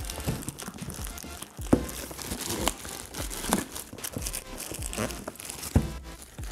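Grey plastic courier mailer crinkling and tearing as it is pulled off a cardboard box, with a few scattered knocks from the box being handled.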